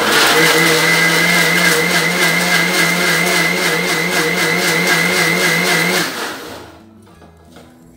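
Electric mixer-grinder blending muskmelon pieces with sugar and water in a stainless steel jar. The motor starts abruptly and runs with a steady whine for about six seconds, then stops and winds down.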